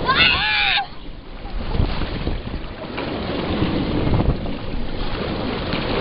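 Water rushing under a family raft sliding down a water-slide chute, with wind noise on the microphone. A rider lets out a short shout at the very start.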